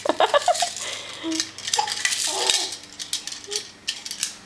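Hard plastic baby toys clattering and rattling against each other as they are handled, in quick irregular clicks, with a baby's voice heard briefly a few times.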